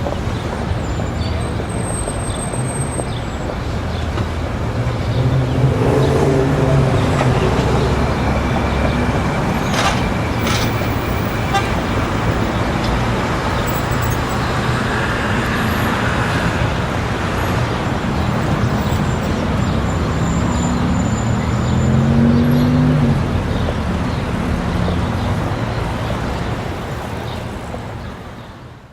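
Busy city street ambience: a steady wash of traffic with vehicles passing, louder twice, and a crowd talking in the background. The sound fades out near the end.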